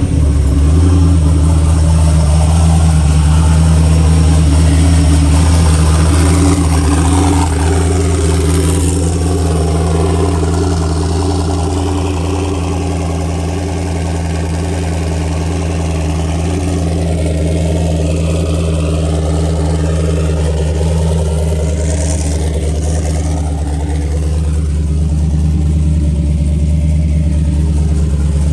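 LS V8 in a Fox-body Mustang idling steadily, just after being started.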